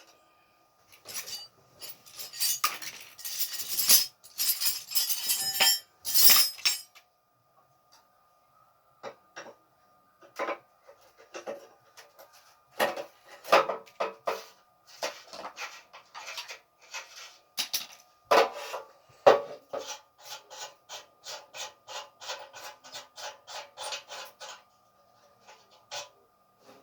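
Metal gas-stove parts being handled, scraped and knocked with tools: a stretch of scraping and clatter, scattered sharp knocks, and near the end a run of quick, even strokes about four a second.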